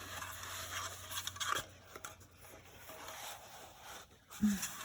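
A neoprene sleeve being pushed and stretched over an insulated tumbler, with scattered rubbing and scraping and a few small knocks, then a brief voiced sound near the end.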